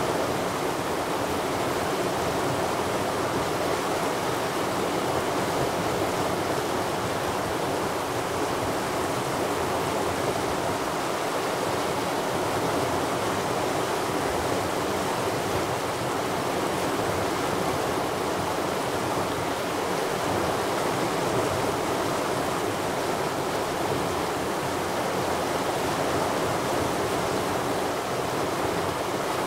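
Rushing mountain stream: a steady, even wash of flowing water with no breaks.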